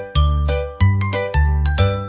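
Background music: a bright tune of bell-like notes over a bass note that strikes about twice a second.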